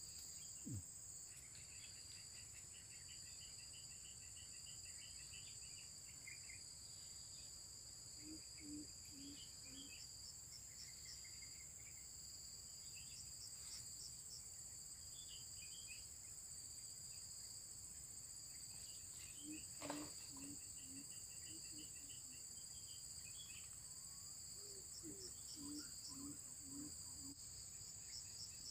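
Insects in tropical forest, such as crickets, keep up a steady, faint, high-pitched drone. Over it birds chirp in short trills, and a few low notes repeat in short runs. One sharp click comes about two-thirds of the way through.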